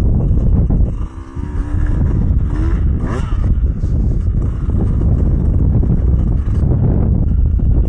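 Two-stroke dirt bike engine running under a rider, with wind rush on the microphone. About a second in the engine drops off briefly, then picks up again, its pitch rising.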